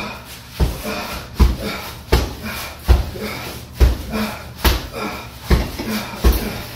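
Gloved punches landing on a hanging heavy punching bag: a steady series of dull thuds, about one every 0.8 seconds.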